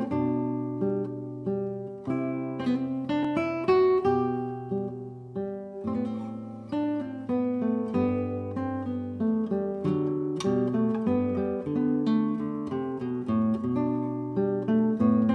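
Background music on acoustic guitar: a steady run of plucked notes.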